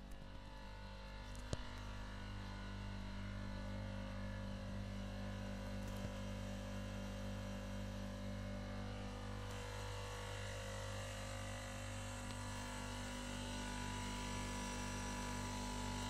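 Outdoor air-conditioning condensing unit running: a steady low hum with a buzz. A single sharp click about a second and a half in.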